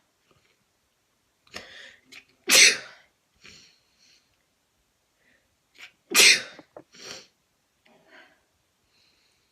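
A person sneezing twice, about four seconds apart: induced sneezes, each led by a short sharp intake of breath and followed by smaller breathy sounds.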